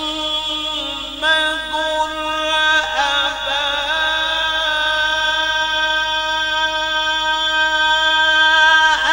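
A male qari reciting the Quran (tilawat) in a melodic chanted style. After a few ornamented turns, he holds one long note steady for about six seconds.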